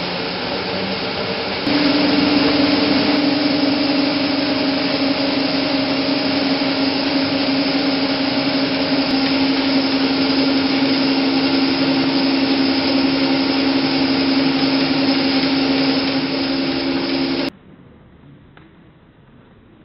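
IMAX 70mm projection-booth machinery, the projector and its film platter system, running: a loud steady whir with a hum. It steps up in level about two seconds in and cuts off suddenly near the end, leaving quiet room tone.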